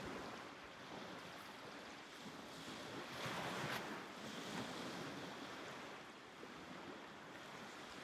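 Sea surf washing on a beach, with wind: a steady wash of noise that swells louder about three seconds in.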